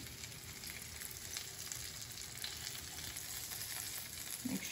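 Steamed banana-flower and chana dal cutlet balls sizzling steadily as they shallow-fry in a few teaspoons of oil in a nonstick pan, with a few light clicks of a metal spatula turning them.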